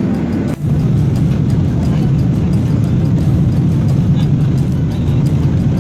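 Steady low rumble of a moving vehicle, cut off for an instant about half a second in, then running on evenly.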